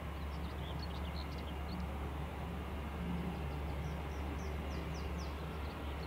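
Airbus A320-family airliner's jet engines running at idle as it taxis, a steady low rumble. Songbirds chirp high over it, with a quick run of falling notes about four seconds in.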